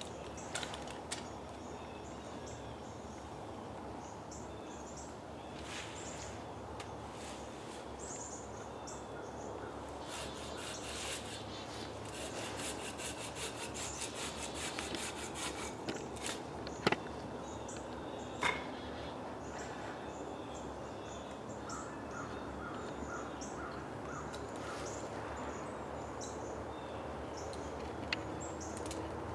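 Birds chirping over a steady outdoor background hum, with two sharp clicks a little past the middle.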